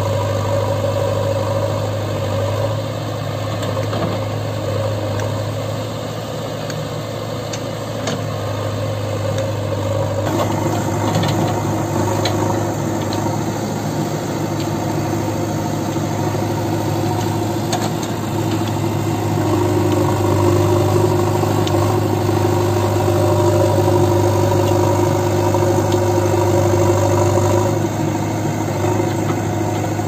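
JCB 3DX backhoe loader's diesel engine running steadily while the backhoe arm digs soil and loads it, with a few light knocks. The engine grows louder in the second half as it works under load.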